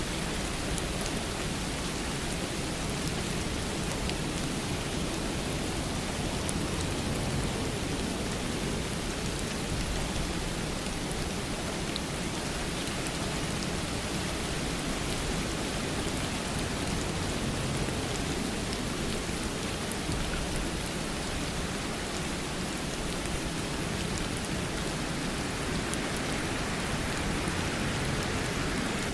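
Steady rainfall, an even hiss with scattered drops pattering on a surface.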